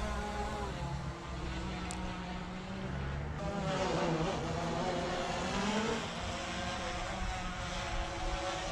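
Multirotor drone's electric motors and propellers whining in flight, the pitch shifting up and down as the drone manoeuvres.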